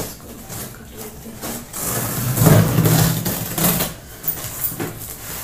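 Packing tape being peeled off a cardboard box: a rough, rasping rip, loudest from about two to four seconds in.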